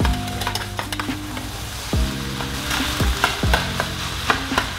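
A metal spatula scraping and knocking against a stainless steel pan while folding rice, with many short clicks, as the rice sizzles and crackles frying in butter and oil. A low steady hum runs underneath.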